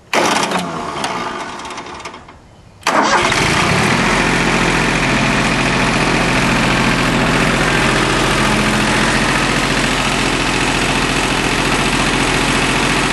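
Yanmar YM1401D tractor's three-cylinder diesel cranking on the starter for nearly three seconds, then catching suddenly and running steadily. It is a restart after air has been bled out of the fuel filter and injector lines.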